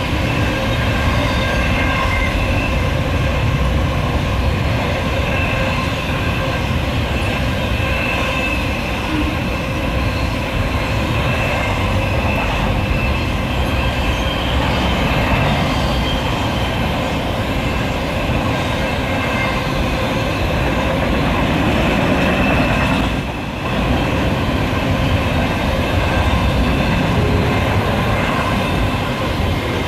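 Double-stack container cars of a Norfolk Southern intermodal freight train rolling past steadily: a continuous rumble of wheels on rail with steady high-pitched wheel squeal above it.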